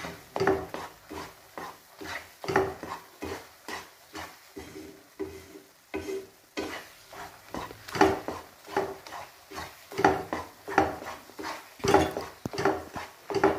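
Wooden spatula stirring and scraping thick besan batter around a nonstick kadhai in repeated strokes, about two a second. The batter is being stirred constantly as it cooks down toward a shira-like texture.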